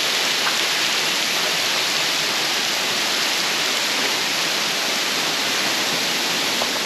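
Waterfall rushing: a loud, steady, unbroken sound of falling water.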